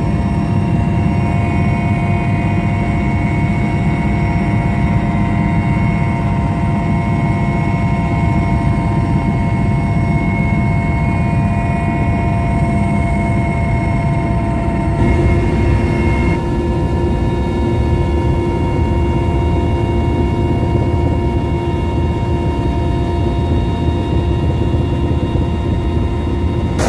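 Mi-8-family helicopter in flight, heard from inside the cabin: a steady loud drone of rotor and turbine engines with a constant whine over it. About halfway through the whine's pitch mix changes abruptly.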